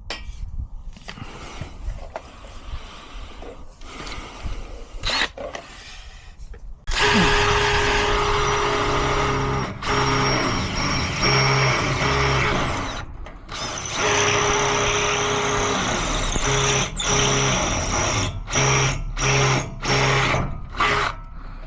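Power drill running under load in long runs with a high motor whine, then in short trigger bursts near the end, as a drill does when drilling or driving screws to fix a gate hinge.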